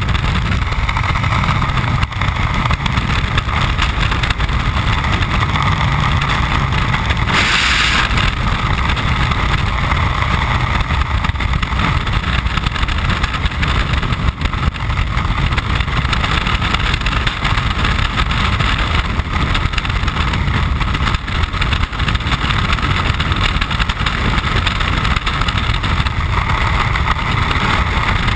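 Freefall wind rushing over a skydiver's body-mounted camera: a loud, steady, rumbling roar, with a brief harsher hiss about seven and a half seconds in.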